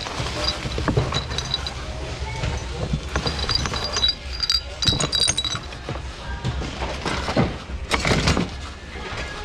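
Hands rummaging through bins of secondhand goods: items clattering and clinking against one another, over background chatter and a steady low hum.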